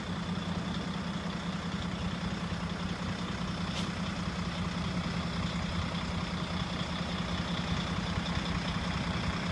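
Heavy diesel truck engine idling steadily, a constant low hum. There is one brief tick about four seconds in.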